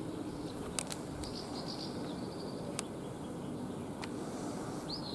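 Swallows twittering in short high chirps and trills, a burst about a second in and another near the end, over steady outdoor background noise, with four sharp clicks.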